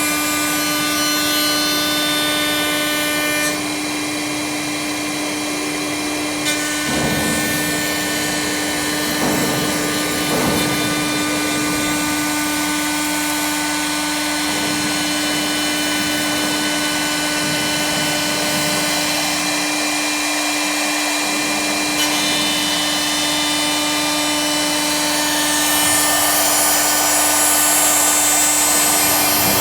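4-axis CNC wood lathe running, its motors giving a steady whine of several tones with a rough cutting noise underneath. The sound shifts at about three and a half and six and a half seconds, and grows louder near the end.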